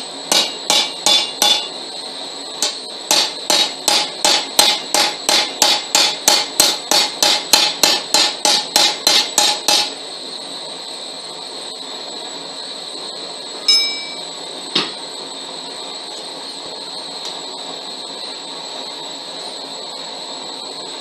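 Hand hammer striking hot steel rebar on an anvil in a fast run of ringing blows, about three a second, with a short pause about two seconds in, stopping about ten seconds in. A few seconds later comes a single ringing metal clank and a click, over a steady background hum.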